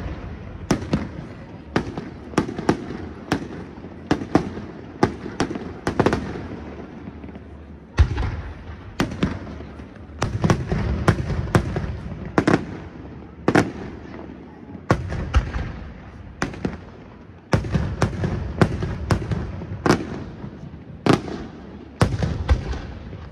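Aerial firework shells bursting in quick succession: sharp bangs, often two or three a second, each followed by a rumbling echo, with a few heavier, deeper booms among them.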